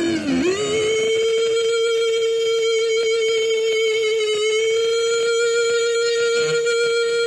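Photon Tonal Feedback Array, a homemade experimental electronic sound machine, sounding a warbling tone that settles about half a second in into a steady held tone with overtones. The pitch dips slightly a little past the middle, and a faint low tone joins near the end.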